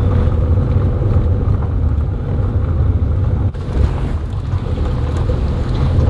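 Steady low rumble of a sedan driving on a rough unpaved road, engine and tyre noise as heard from inside the car.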